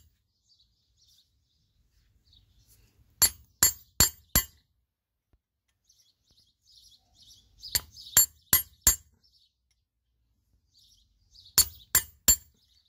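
Hammer blows on a steel punch held against a Yamaha Jog scooter shock absorber part gripped in a pipe wrench, sharp ringing metallic clinks in three quick bursts of four, four and three strikes. Faint bird chirps between the bursts.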